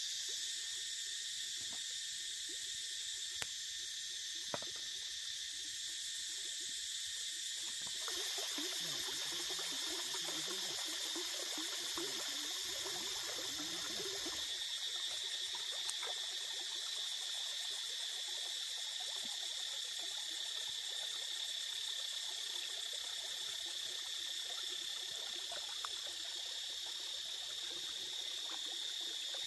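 Steady, high-pitched chorus of forest insects. Shallow stream water trickles over stones from about eight to fourteen seconds in, and there are a couple of faint clicks a few seconds in.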